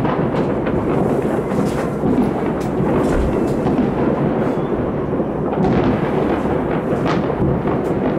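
Massed New Year's fireworks across a city heard from a high vantage point: a continuous rumble of many overlapping distant bangs and crackles, with no single burst standing out.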